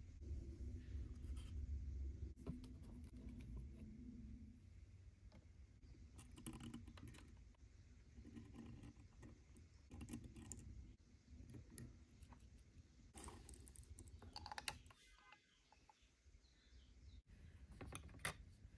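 Faint, scattered light clicks and taps of small dollhouse miniatures being handled and set in place: tiny mugs hung on a hook rail and a small pot set down on a toy stove, over a low room rumble. The clicks come in small clusters, several about a third of the way in, again about halfway, and near the end.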